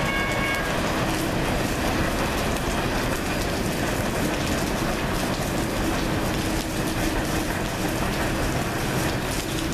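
Steady heavy rain falling on the station platform and canopy, with a freight train of tank cars rolling away along the track.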